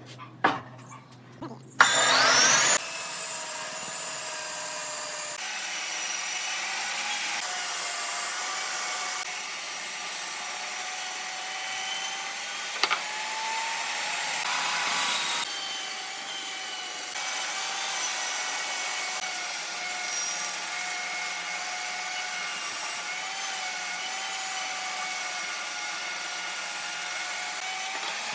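Handheld electric power tool spinning up about two seconds in, then running steadily as it works wood, its whine wavering slightly in pitch with the load. A few light knocks come before it starts.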